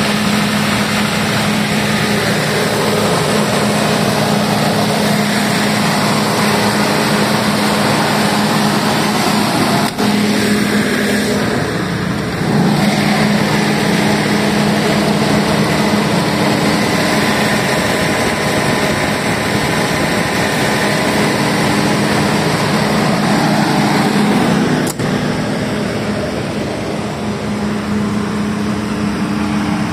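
FG Wilson P200H 200 kVA diesel generator running steadily, with a constant engine hum. It becomes a little quieter near the end.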